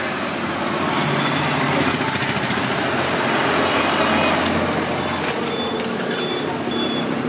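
Street traffic noise with a motor vehicle engine that grows louder for a few seconds in the middle, then eases off. Near the end a faint high beep repeats several times.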